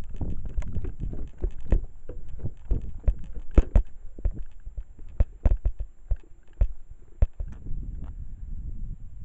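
Wind rumbling over a handheld camcorder's microphone, with many irregular clicks and thumps.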